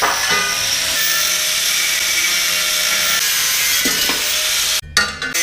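A power tool running steadily at work, loud and noisy, dropping out briefly near the end before it stops.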